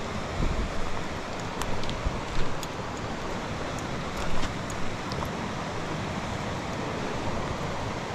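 Steady rush of a river running over a rocky riffle, with a few low wind bumps on the microphone and some light clicks in the first half.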